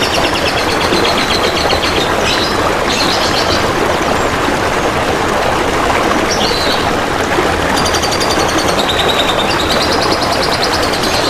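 Songbird singing rapid, pulsed trills in several phrases, with a pause in the middle, over a steady rush of trickling water.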